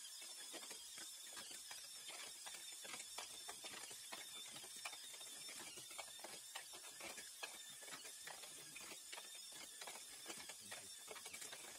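Small VEX robot motors running with irregular rattling clicks from the intake rollers and gears as it drives along a row of plastic game blocks and feeds them into its hopper.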